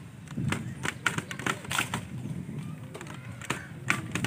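Irregular sharp clicks and knocks, about a dozen, the loudest nearly two seconds in, over a low outdoor background.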